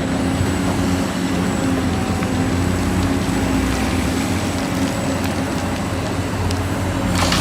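A vehicle engine running steadily with a heavy rumble and low hum, with a few sharp clicks near the end.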